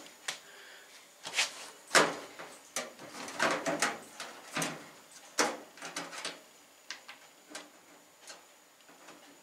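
Blower assembly of a Samsung over-the-range microwave being fitted back into the top of its metal chassis by hand: an irregular run of clicks, knocks and scrapes, busiest in the first six seconds and thinning out toward the end.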